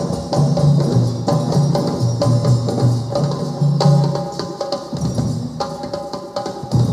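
Group of hand drums, djembes among them, playing a steady rhythm with repeated deep bass strokes; the playing gets quieter in the second half, then a loud stroke comes near the end.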